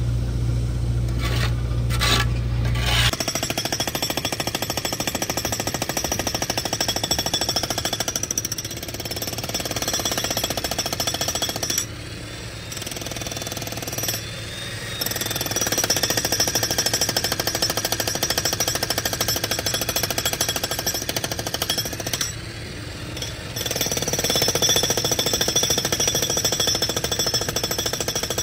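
Pneumatic jackhammer running off an air compressor, breaking up asphalt. It starts about three seconds in and hammers steadily at a fast rate, with two short lulls. A low hum runs underneath at the start and cuts off as the hammering begins.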